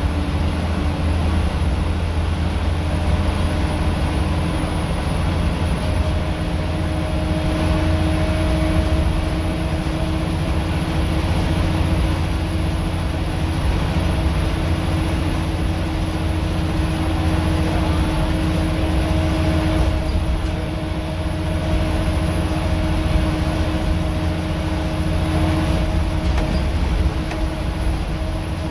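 Scania L94UB single-deck bus's rear-mounted diesel engine heard from inside the saloon, working hard on the move with a steady, loud drone and road noise. A higher whine sits over the drone and drops out and returns a few times.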